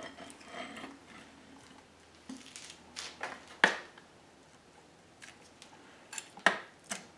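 Metal parts of an EP3 electric power steering rack clinking and knocking as the greased rack shaft is worked into the housing by hand: scattered sharp clicks, the loudest about three and a half seconds in and again near the end.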